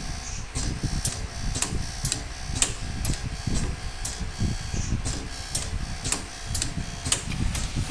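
Pneumatic connector socket strength tester running an automatic test loop: its mechanism clicks evenly about twice a second over a steady low rumble.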